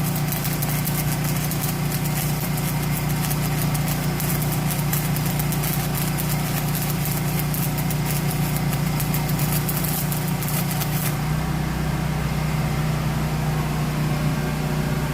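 An engine running steadily at idle, with a crackling hiss over it that stops abruptly about eleven seconds in.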